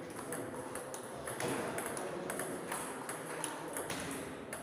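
Table tennis balls clicking on tables and paddles: short, sharp, irregularly spaced ticks over a steady hall hum.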